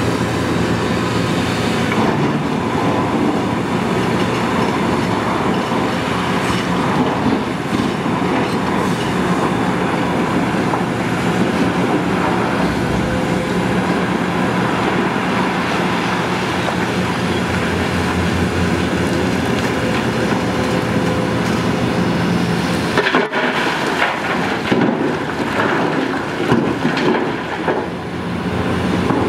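Hitachi ZX690LCH-6 excavator's diesel engine running steadily under load with its hydraulics, digging blasted granite. About three quarters of the way through, a run of rock clattering and knocks as a bucket of granite is dumped into a dump truck's steel bed.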